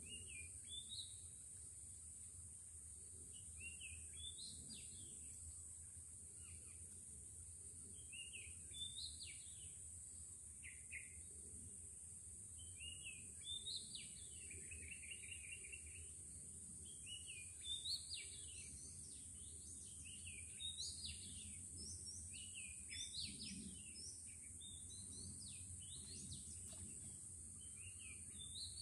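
Several birds chirping and calling on and off, busier in the second half, with a quick trill about halfway through, over a steady high hiss.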